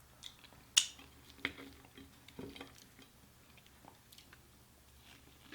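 Quiet close-up eating sounds: a person chewing food, broken by a few short sharp clicks and taps, the loudest about a second in.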